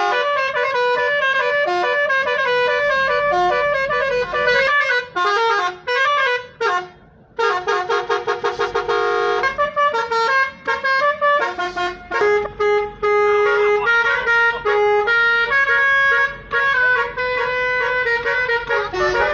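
A Basuri telolet multi-tone car horn played by hand, sounding a melody of stepped horn notes. Some notes are held, and there is a quick run of rapidly repeated notes about halfway through.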